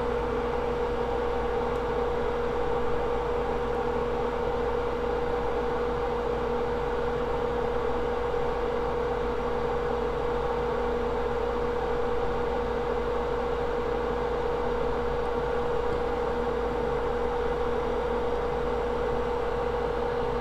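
A steady machine-like hum: one constant mid-pitched tone with a few fainter tones over an even hiss, unchanging throughout.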